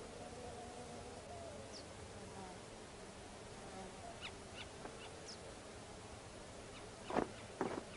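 Faint desert ambience: a buzzing flying insect drones on and off, with a few faint, short, high bird chirps. Near the end come two short, loud, harsh sounds about half a second apart.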